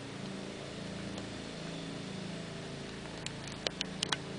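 Steady low hum of a background motor, with a few faint light clicks of steel parts being handled near the end.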